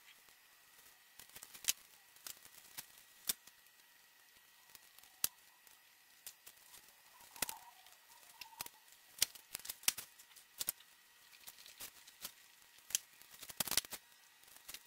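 Scattered light clicks and taps of plastic from a Scorpion motorcycle helmet being handled, with hands working at its visor, and a louder cluster of clicks near the end.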